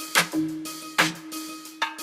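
Background music with a steady drum beat, a little more than one hit a second, over a held low note.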